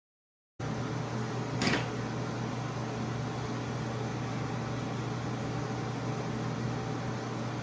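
Steady hum and hiss of a fan running in a small room, starting suddenly about half a second in, with one short tap about a second later.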